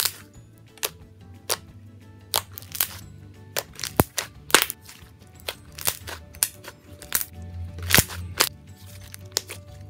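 Slime being squeezed and worked by hand, making sharp, irregular popping and clicking snaps, over background music.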